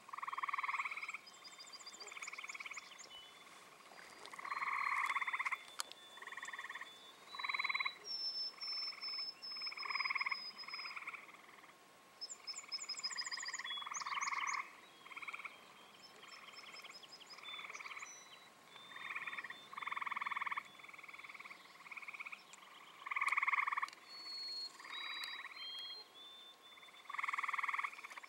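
A chorus of frogs calling, many short calls about half a second to a second long repeating and overlapping one another.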